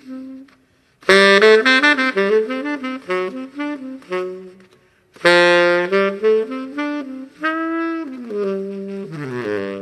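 Baritone saxophone playing jazz phrases. Two loud, busy runs of notes each start after a brief gap, about one and five seconds in, and a falling line of notes comes near the end.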